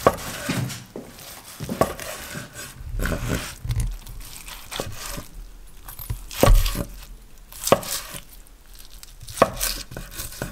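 A long knife slicing through a grilled tomahawk steak, the blade knocking against a wooden cutting board about nine times at uneven intervals.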